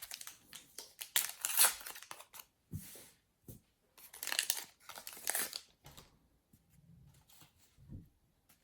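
Foil trading-card packets being torn open and crinkled, in two main bursts of tearing and rustling about a second in and about four seconds in, with lighter rustles of cards being handled between them.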